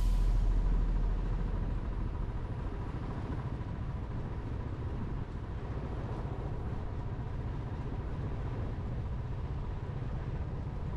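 Steady low rumble of a vehicle driving along a road, with road and wind noise. Music fades out over the first second or so.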